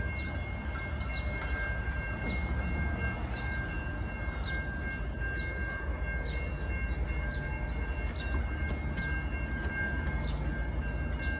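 Grade-crossing warning bells ringing steadily, over the low rumble of a CSX diesel locomotive approaching slowly.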